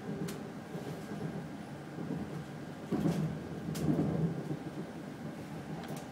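Cercanías commuter train running along the track, heard from inside the carriage: a steady rumble of wheels on rails that swells louder about three seconds in and eases off again, with a few sharp clicks scattered through.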